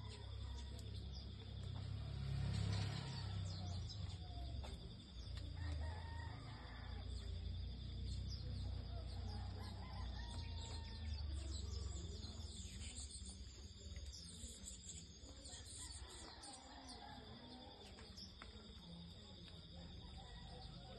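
Assorted birds calling and chirping, with short scattered chirps throughout over a steady high-pitched whine.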